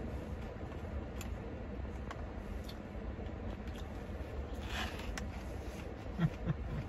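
Eating a lettuce salad: faint clicks of a spoon against a plastic container and a short crunch of chewing about five seconds in, over a low steady hum in a car cabin.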